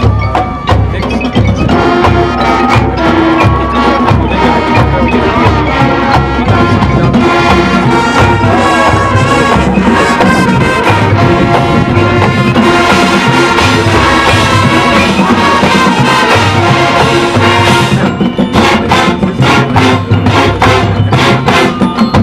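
High school marching band playing: brass and mallet/chime percussion in a full, sustained passage. Near the end the held ensemble sound drops away, leaving sharp, separate percussion hits.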